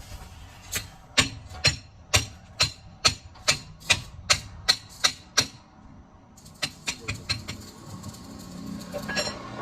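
Hammer striking metal: about a dozen evenly spaced blows, roughly two a second, then after a short pause a quick run of lighter taps.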